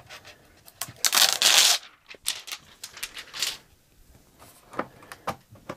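Protective plastic film being peeled off the wing panels of a Netgear Nighthawk AX8 router: a loud tearing rustle about a second in, followed by a string of short crackles and clicks.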